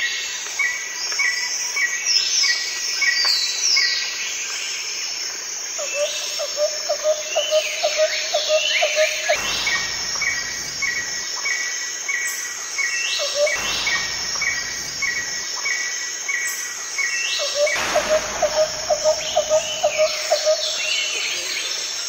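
Several birds singing at once over a steady high hiss: runs of short, evenly spaced chirps, a lower fast trill that comes and goes several times, and high notes that slide downward.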